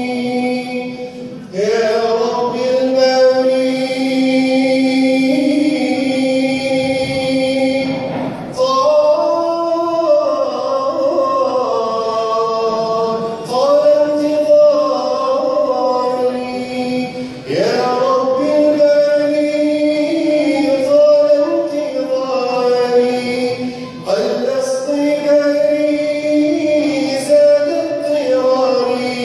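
An Arabic Islamic nasheed sung by a male munshid, with layered choir-like backing voices, in long held phrases that start afresh every few seconds.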